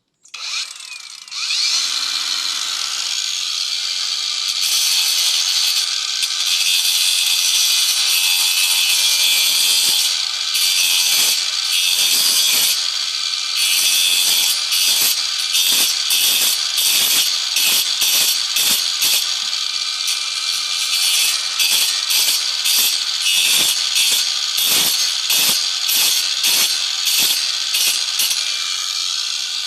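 A power tool cutting wood. It starts up suddenly, runs steadily, then from about a third of the way in pulses in a regular rhythm of about two strokes a second as it works into the wood.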